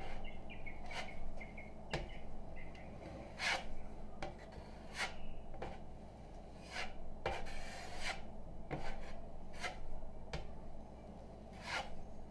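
A 6-inch putty knife scraping spackle across drywall over mesh tape, in a series of short, irregular strokes as the first coat is spread and smoothed.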